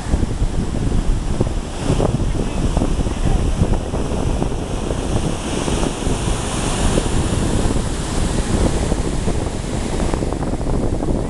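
Surf washing in while strong wind buffets the microphone with a heavy, continuous rumble. A brighter hiss of water rises about halfway through and then fades.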